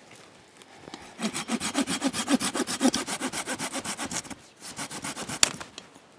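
Small folding hand saw cutting through a dead, sound (not rotten) branch with quick back-and-forth strokes, starting about a second in. After a short pause come a few more strokes and a sharp crack near the end as the sawn piece comes free.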